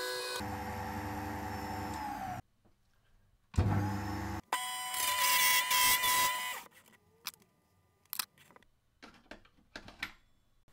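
Small benchtop table saw running and cutting a polycarbonate block in short spells with abrupt breaks of silence between them. The motor tone sinks slightly as it stops about two seconds in, and a louder cutting stretch follows in the middle. A few light clicks and knocks of handling come near the end.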